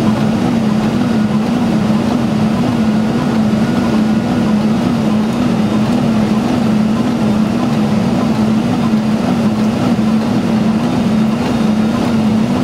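Boeing 747-400 flight-deck noise on approach in rain: a steady rushing noise with a low hum that wavers up and down in pitch over and over.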